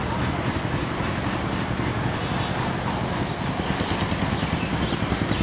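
An engine running: a steady low rumble with a fast, even pulse.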